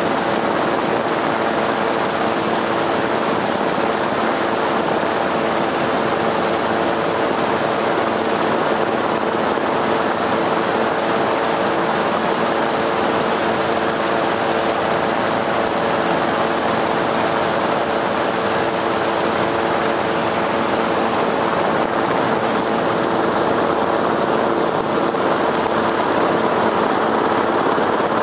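Steady motor noise with a constant hum that holds one pitch throughout.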